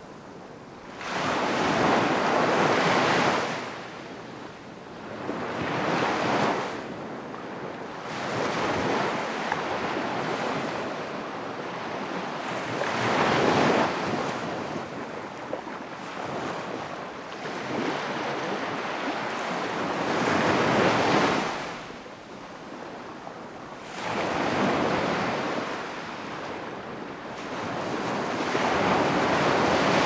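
Ocean surf: waves breaking and washing in, a swell of rushing water every three to four seconds that rises and falls away.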